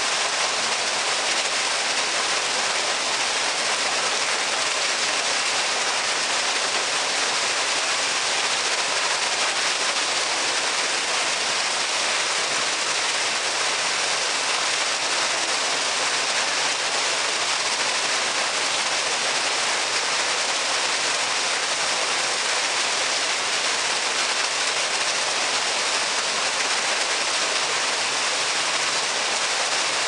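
Artificial waterfall: a single stream of water falling from a stone spout and splashing into a shallow pool, a steady, even hiss of falling water that does not change.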